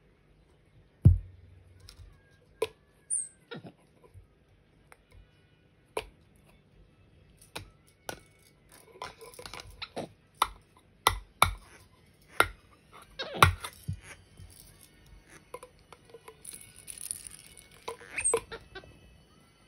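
Empty plastic pill bottle knocked, rolled and clattered on the floor by a capuchin monkey: irregular sharp knocks, the loudest about a second in, with stretches of rattling handling. A few brief high chirps come in between.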